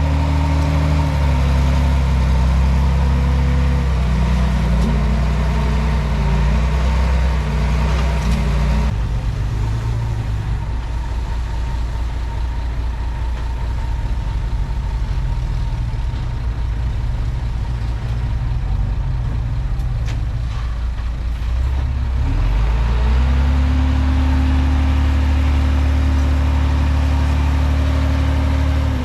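Komatsu D31P bulldozer's diesel engine working under load, dropping to a lower, rougher note about a third of the way through and rising back up to its higher, steady revs about three-quarters of the way in.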